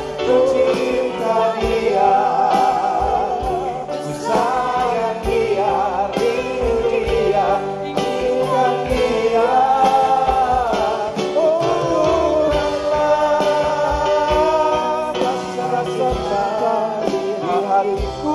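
A live pop band playing a slow ballad: several singers carry a long, wavering sung line, largely on an open "aaa" vowel, over drums, electric guitar and keyboard.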